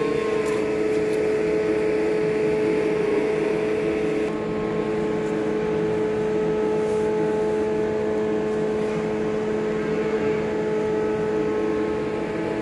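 Steady machine hum holding a few fixed pitches without change, the constant running of equipment in a calf stable.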